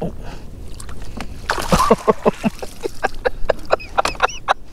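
Hooked speckled trout splashing at the surface beside the kayak as they are reeled in: a quick run of short splashes starting about a second in.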